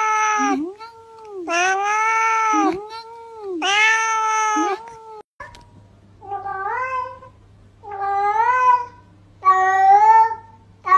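Cat meowing: three long, drawn-out meows that rise and fall. About halfway through, a low steady hum comes in, and four shorter meows follow, each rising in pitch, about one every one and a half seconds.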